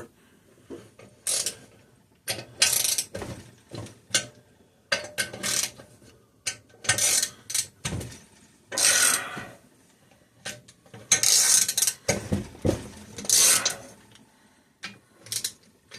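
Socket ratchet wrench clicking in short, irregular runs while loosening cylinder head bolts on an opposed-twin small engine.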